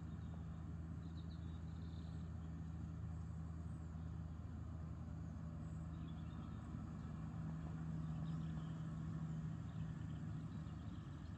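New Holland tractor running steadily as it pulls a McHale Fusion baler-wrapper through the silage field, a low even engine drone that grows a little louder around eight seconds in.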